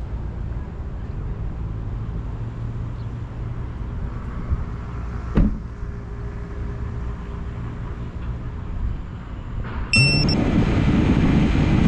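Steady low outdoor rumble with a single thump about five seconds in. Near the end a much louder sound cuts in, with a few short high tones and then strong pitched tones that bend up and down.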